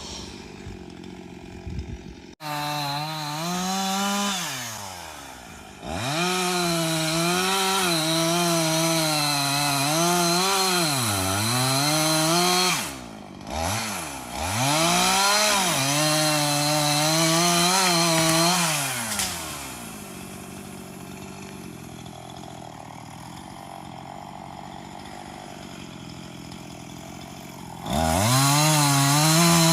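Chainsaw engine revving hard in long bursts while cutting trees, its pitch sagging and recovering as the chain bites into the wood. A quieter stretch of several seconds comes in the second half, and it revs up again near the end.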